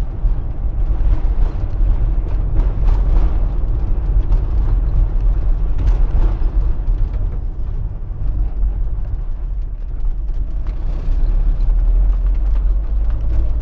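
Fiat Fiorino van heard from inside the cab while driving slowly on a rough street: a steady low rumble of engine and road noise, with a few brief knocks.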